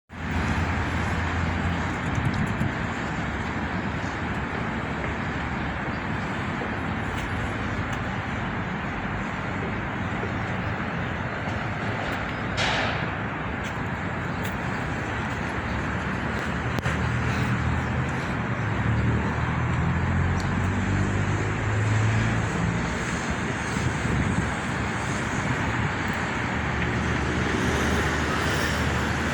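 A motor vehicle running steadily, with a low engine hum and road and wind noise. There is a brief falling hiss about halfway through.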